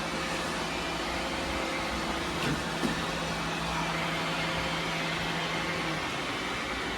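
Several robot vacuums running together, a steady whirring hiss of their fans and brushes with a low motor hum that stops about six seconds in. A couple of light knocks come between two and three seconds in.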